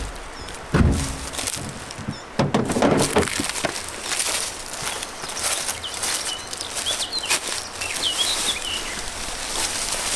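Outdoor sounds: a couple of heavy footsteps or knocks in the first few seconds, then a small bird chirping several times in the second half, over a steady hiss.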